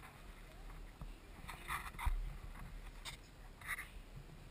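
Faint scuffs and soft thumps of people moving on gym mats and a wooden floor, a few short ones coming at about one and a half, two and three and a half seconds in.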